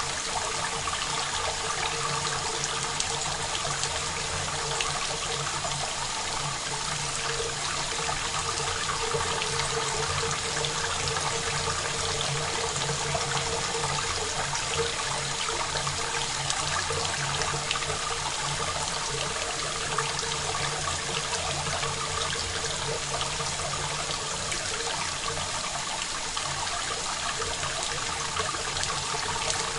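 Steady rain falling, a dense even hiss full of small drop patters, recorded dry without reverb.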